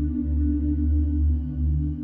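Background ambient music: sustained, droning low tones with no beat.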